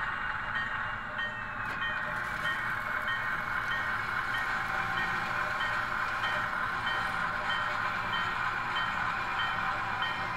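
HO scale model train running slowly, with a steady hum and a bell ringing at an even pace, about three strokes every two seconds.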